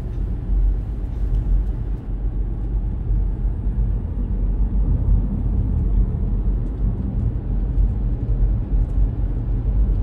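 Steady low rumble of a car's engine and tyres on the road, heard from inside the moving car.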